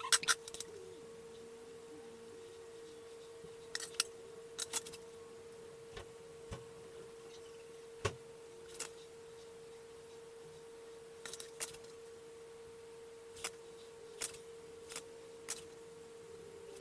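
Faint, scattered clicks and small taps from wires, solder and a soldering iron being handled at the bench, about fifteen in all, over a steady faint hum.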